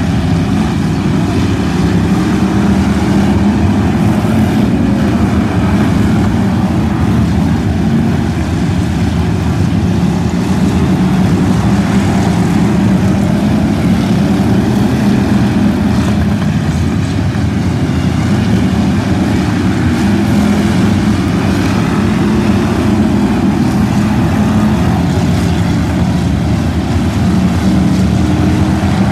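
A field of stock car engines running together as they lap the track, a loud, steady drone with no breaks.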